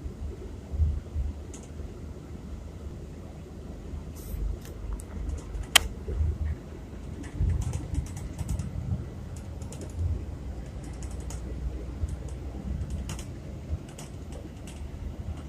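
Low rumble of a coach bus driving, heard inside the passenger cabin, with scattered light clicks and ticks from about four seconds in and one sharp click near six seconds.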